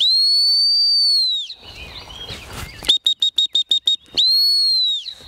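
Gun-dog training whistle: one long blast, then a quick run of about eight short toots, then a second long blast. These are the handler's whistle commands to a retriever working at a distance, the long blasts being the stop whistle.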